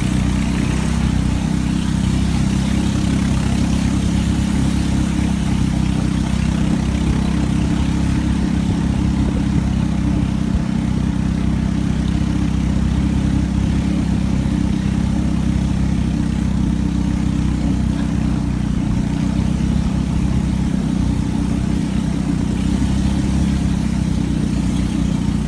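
Engine of a wooden river longboat running steadily at an even speed, with water rushing along the hull as the boat moves.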